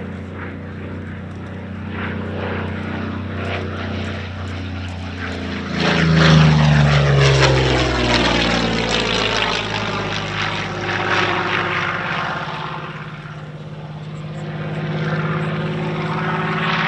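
Curtiss-Wright P-40N Warhawk's Allison V-12 engine running hard as the fighter flies by. Its pitch drops sharply as it passes close about six seconds in, which is the loudest moment, and the sound builds again near the end.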